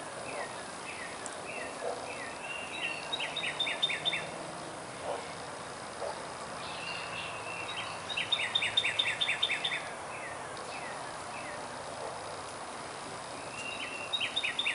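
A songbird singing the same phrase three times, about every five seconds: a few down-slurred whistled notes leading into a fast run of short notes.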